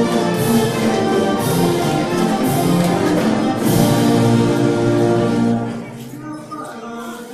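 Folk dance music with a steady beat, brass among its instruments, stopping about five and a half seconds in; children's voices follow.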